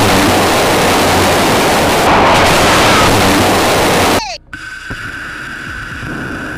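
Loud, steady roar of a missile's rocket motor at launch, which cuts off suddenly about four seconds in. A short falling whoosh follows, then a quieter steady high whine.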